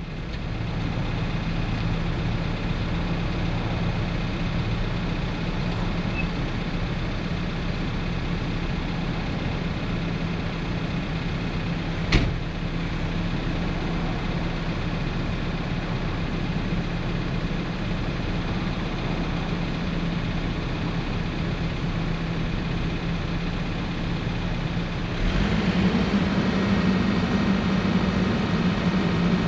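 Case 590 Super N backhoe's diesel engine idling steadily, with a single sharp click about twelve seconds in. Near the end the engine speeds up and runs louder as the revs are raised.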